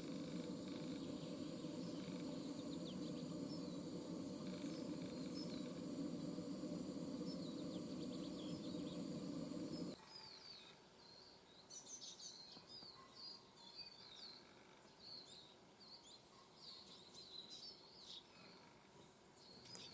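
Small birds chirping and twittering in short, high calls. For the first half a steady low rumble of background noise lies under them; it cuts off suddenly about ten seconds in, and after that the chirps come thick and clear.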